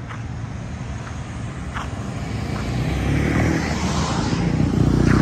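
A motor vehicle passing on the street. Its rumble and tyre hiss grow louder over the last couple of seconds.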